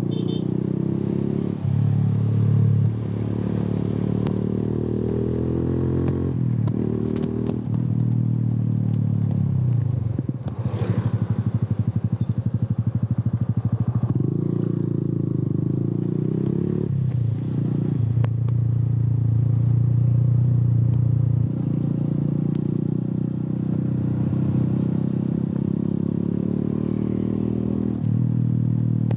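Suzuki Gixxer single-cylinder motorcycle engine through an aftermarket Yoshimura exhaust, ridden on the road. The engine revs climb and drop as it shifts through the gears. About ten seconds in it falls to a slow, even beat of separate exhaust pulses before pulling away again.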